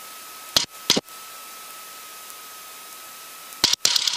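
Steady hiss of an aircraft headset intercom with a faint thin whine, broken by two short, sharp bursts of noise about half a second and one second in, and by a cluster of hissy bursts near the end.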